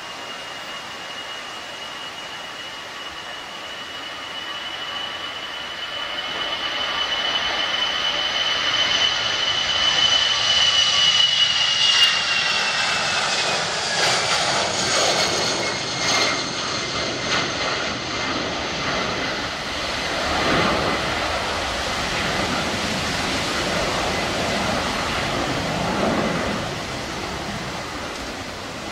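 Twin-engine Airbus A320-family jet airliner at take-off power passing close by. A high fan whine builds to its loudest near the middle and drops in pitch as the aircraft passes. An uneven lower rumble follows as it climbs away.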